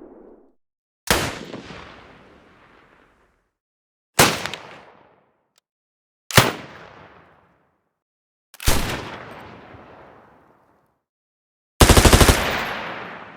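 A series of separate gunshots, each a sharp crack trailing off in a long echoing tail: four single shots a couple of seconds apart, then near the end a short rapid burst of automatic fire.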